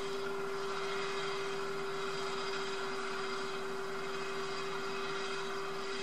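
A steady, unchanging hum at one constant pitch over a faint even hiss.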